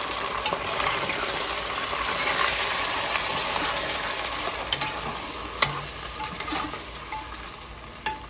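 Raw chicken sizzling in hot oil with fried onions in a pot while being stirred with a metal spoon, the spoon clinking sharply against the pot a few times. The sizzle gradually dies down toward the end.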